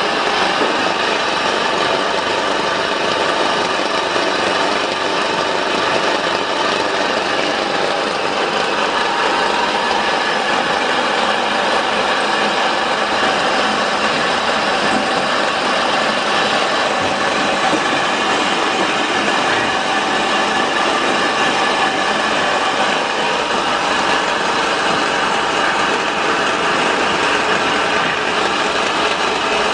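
Small flat-die animal feed pellet mill driven by an electric motor, running under load as it presses grain feed into pellets. A loud, steady mechanical drone that does not change.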